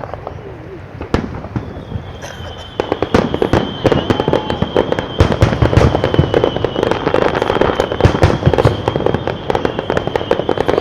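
Fireworks display: a few separate booms at first, then from about three seconds in a dense, rapid barrage of bangs and crackles. A steady high tone sounds above it from about two seconds in.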